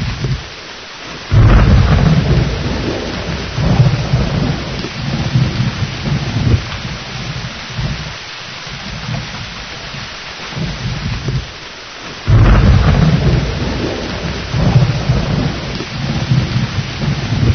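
Thunderstorm: steady heavy rain with two claps of thunder, one about a second in and another about twelve seconds in. Each starts suddenly and rolls on in rumbles for several seconds.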